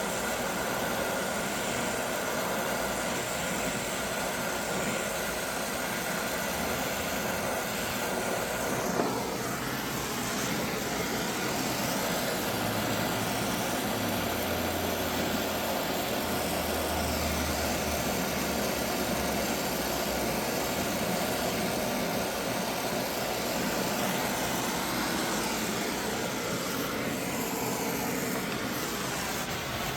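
Brazing torch flame burning with a steady rushing hiss as a fitting on a valve assembly is brazed.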